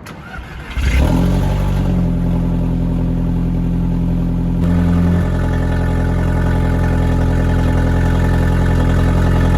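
Audi S3 8L's 1.8-litre turbocharged four-cylinder engine started from cold: it cranks briefly, catches about a second in and settles into a steady idle, with a slight change in tone about halfway through. The engine breathes through a conical K&N intake filter, and the exhaust has a straight pipe in place of its middle section.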